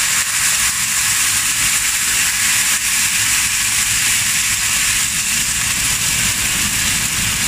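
Water just poured into a hot oiled frying pan of sliced garlic, green chillies and cumin seeds, sizzling with a steady loud hiss as it flashes to steam.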